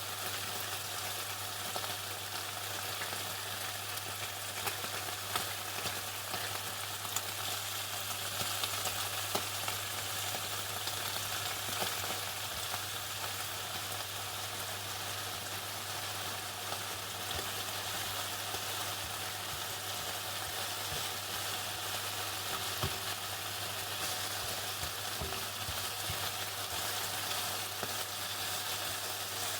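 Chicken frying in hot oil: a steady, dense sizzling crackle, like rain, over a steady low hum.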